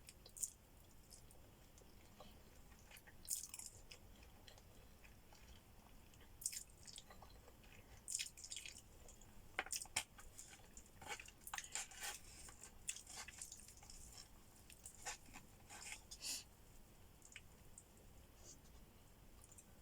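Close-up mouth sounds of a person eating: chewing, with scattered sharp crunchy bites and wet clicks, busiest through the middle.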